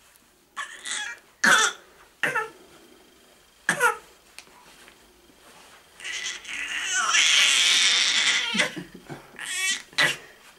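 Baby's short squeals and grunts, then a long breathy rasping sound lasting about two and a half seconds from about six seconds in, and a rising squeal near the end.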